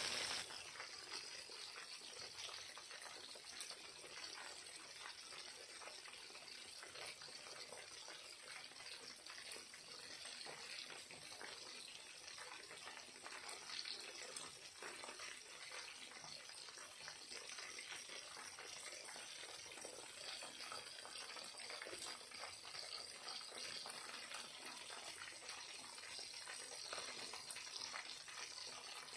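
Chicken wings frying in hot oil in a pan: a steady sizzle with many small pops and crackles scattered through it.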